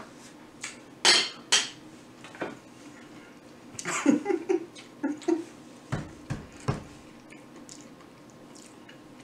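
Kitchen handling noises: a scattered series of sharp clicks and knocks, as of dishes and utensils on a countertop. A cluster of short murmured vocal sounds comes near the middle.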